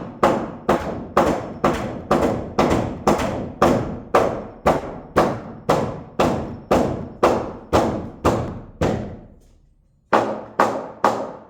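Steady hammer blows on a wooden 2x12 floor joist, about two a second, driving it down into place. The blows stop briefly near the end, then three more follow.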